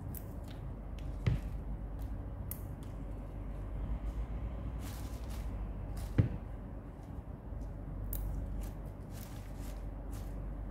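Fresh rocket (gergir) leaves being handled and sorted in a plastic basin: soft, crackly rustling of the leaves and stems, with two sharp knocks, about a second in and about six seconds in, over a steady low hum.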